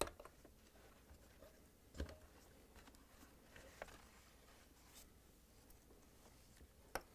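Faint scratching and rustling of a fibrous dishwasher door insulation pad being worked loose and pulled out from around the wiring, with a soft knock about 2 s in and a sharp click near the end.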